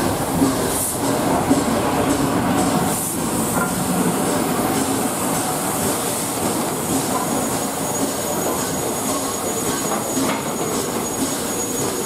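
LNER Class A3 Pacific steam locomotive 'Flying Scotsman' rolling slowly past at close range as it runs into the platform, a steady noise of its wheels and running gear. A thin high squeal joins about five seconds in.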